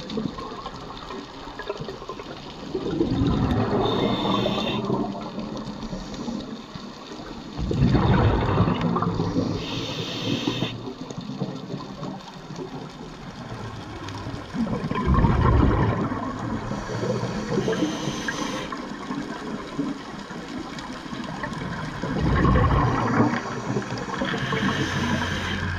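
Scuba diver breathing through a regulator underwater: four rushes of exhaled bubbles about seven seconds apart, with short high hisses between them.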